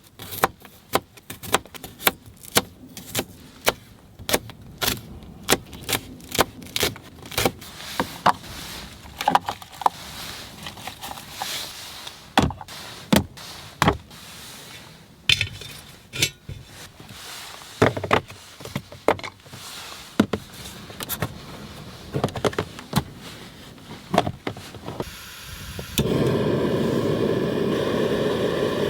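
Cooking gear and utensils being handled, with many separate metallic clinks and knocks at irregular intervals. About 26 seconds in, a steady loud hiss starts and keeps going.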